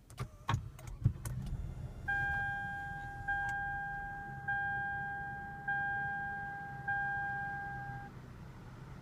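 A few clicks and knocks, then the Lexus ES350's warning chime dinging five times, about a second apart, each ding fading away, over a low steady rumble.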